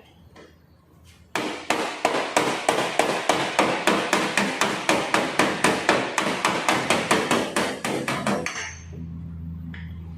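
Hammer blows struck in a rapid, even rhythm, about five a second, for about seven seconds, then stopping.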